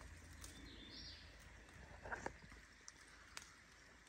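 Near silence: faint outdoor ambience with a few soft, scattered clicks, two of them close together about two seconds in.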